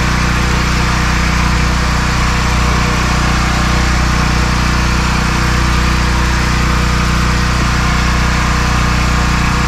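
Engine-driven generator running steadily: a constant low hum with no change in speed.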